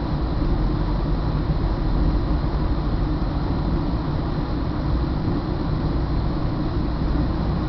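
Steady low rumble of a Northstar commuter train, heard from inside the coach.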